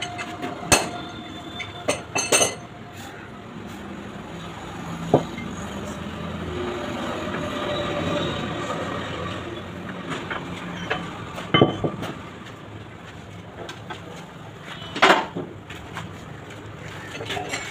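Hand reamer being turned through new bushes in a Mahindra 575 DI tractor's front-axle spindle housing, boring them to size for the spindle: a steady metal-on-metal scraping grind through the middle, with several sharp metallic clinks and knocks around it.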